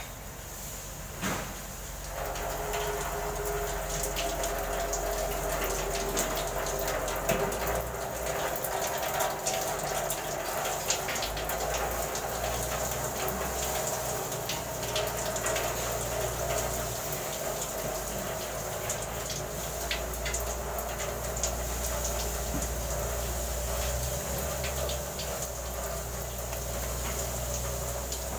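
A short knock, then from about two seconds in a steady stream of liquid running without a break.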